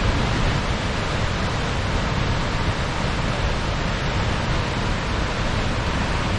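Steady rush of falling water from the Tower Fall waterfall, an even wash of noise without break.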